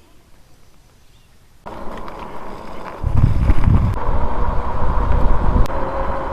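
Quiet at first, then about one and a half seconds in, e-bike riding sound cuts in: a faint steady whine from the 500-watt geared hub motor under throttle, mixed with wind on the microphone. About three seconds in it gets much louder, with heavy wind buffeting.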